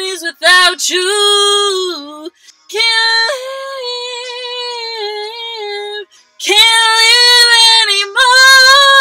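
A woman singing unaccompanied in long, high held notes with vibrato, in several phrases broken by short breaths about two and six seconds in; no words can be made out.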